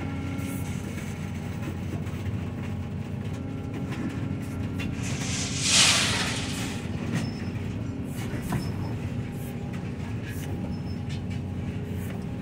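Diesel engine and hydraulics of a demolition machine fitted with a hydraulic shear, running steadily as heard from inside its cab. About halfway through, a harsh, louder rush of noise swells for about a second as the shear works on the ATM.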